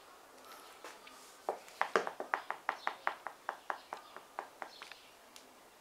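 A quick run of about twenty sharp clicks, about six a second, starting about a second and a half in and growing weaker toward the end.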